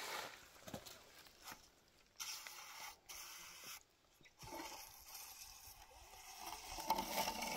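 Scraping of a hand tool on wet cement or sand: two short strokes of under a second each, then a longer scrape of about three seconds that grows louder near the end, each stopping sharply.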